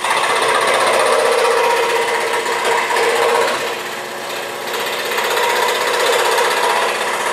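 WEN 3921 16-inch scroll saw running, its blade reciprocating and cutting through a thin wood panel fed by hand. The sound eases a little about four seconds in.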